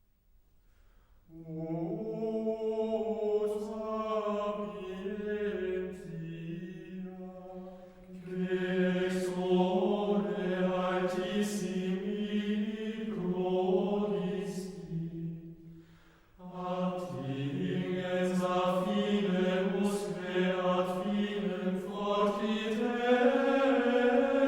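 Background music: a choir singing slow, sustained chant-like phrases in harmony, with short breaks between phrases about eight and sixteen seconds in.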